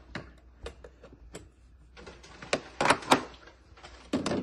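Portafilter being fitted into the group head of a Breville Barista Express 870XL espresso machine and twisted to lock: scattered metal clicks and knocks, loudest in a cluster about two and a half to three seconds in, with another knock near the end.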